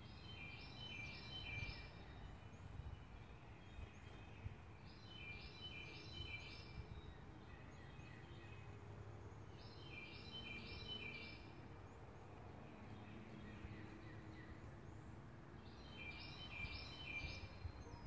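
Chickadee calling: a short, faint run of about four harsh 'dee' notes, repeated four times at roughly five-second intervals, over low outdoor background rumble.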